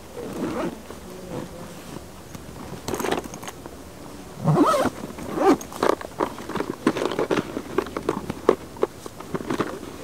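Hands working in long riverbank grass and vegetation close to the microphone: irregular rustling and crackling, loudest about halfway through, then a run of sharp clicks.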